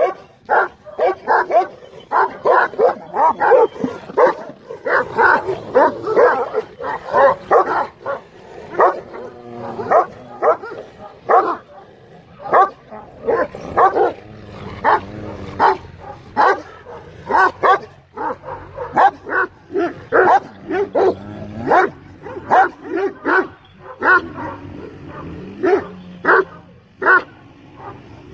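Kangal shepherd dogs barking at each other in a rapid, repeated volley, about two to three barks a second with brief lulls, an aggressive confrontation between rival dogs.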